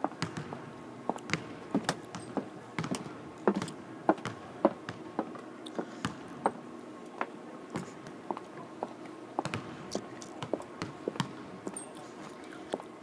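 Basketballs bouncing on a hardwood court in a large empty arena: sharp, irregular knocks, often several a second, over a faint steady hum.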